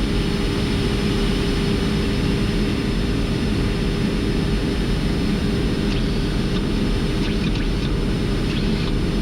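Steady flight-deck noise of a Boeing 747-400 in flight: an even rush of air and engine noise with a constant low hum.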